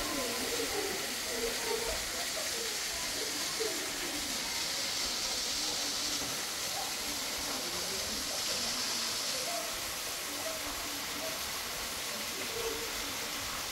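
Steady hiss of running water in a rocky gorge, with faint voices talking now and then.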